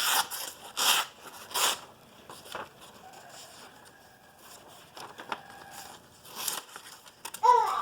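Steel knife blade drawn along a sharpening rod in a few short, hissing metal-on-metal strokes, about one every second at first, then fewer. A brief voice sound near the end.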